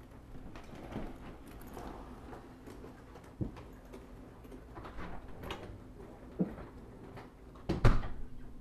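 A person's footsteps and a few knocks in a room, ending in a loud thump near the end.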